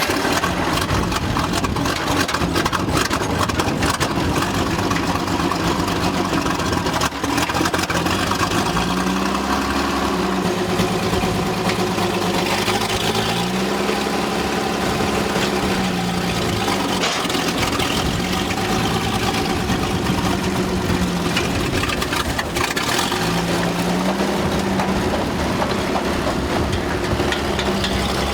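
Ram skidder's MOPAR (Chrysler) engine running just after starting: it idles unevenly at first, then is revved up and back down again and again.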